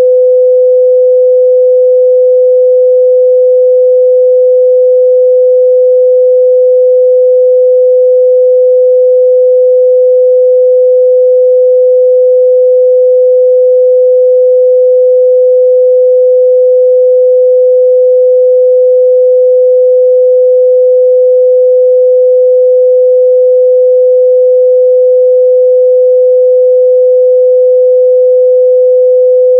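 A pure 505 Hz sine-wave test tone, one unwavering pitch held steadily at high level.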